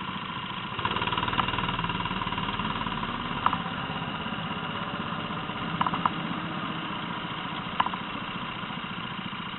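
Rental go-kart engines idling and running, getting louder about a second in, with a few short sharp clicks scattered through.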